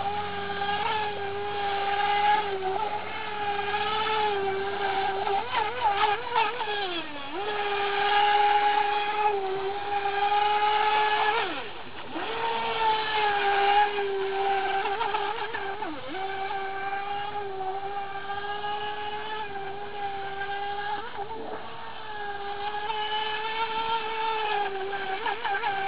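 Electric RC mono-hull speedboat running at speed: a steady whine from its Turnigy 2900kv brushless motor. The pitch drops and climbs back a few times as the throttle is eased off and reopened.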